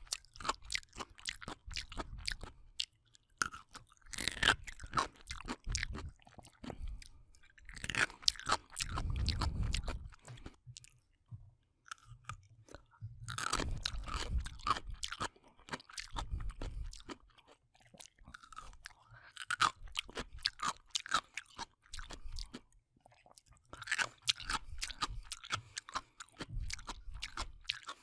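A person chewing and crunching pickles close to the microphone: bouts of crisp crunching, each a second or two long, with short pauses between bites.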